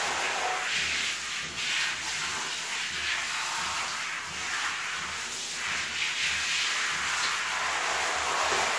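Hand-held shower head spraying water over a dog's wet coat: a steady hiss of running water that swells briefly now and then.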